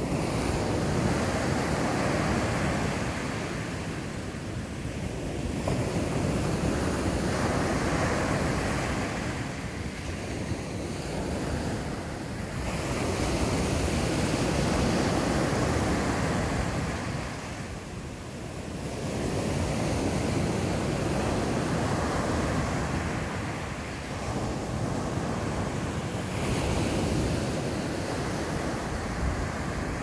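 Rough surf left by a passing typhoon, breaking on a sandy beach and nearby rocks. The roar of the breakers swells and eases in long surges about every six seconds.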